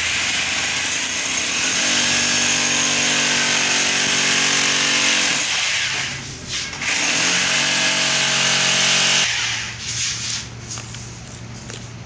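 Corded electric drill boring into a wall: a steady motor whine under the grinding of the bit. It runs for about six seconds, pauses briefly, runs again for about two seconds and stops about nine seconds in.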